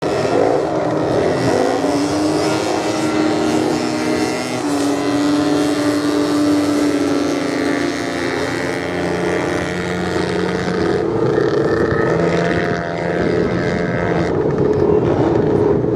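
Several motorcycle engines running and revving, their pitch gliding slowly up and down as the bikes ride past.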